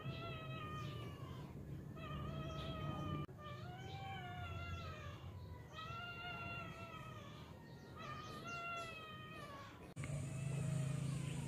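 A cat meowing repeatedly: about five long, drawn-out meows, each about a second long and rising then falling in pitch, a couple of seconds apart.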